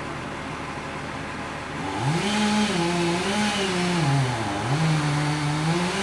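Two-stroke chainsaw revved hard for about four seconds, starting about two seconds in, its pitch rising and falling and dipping briefly, then let off to idle. A low engine drone runs underneath.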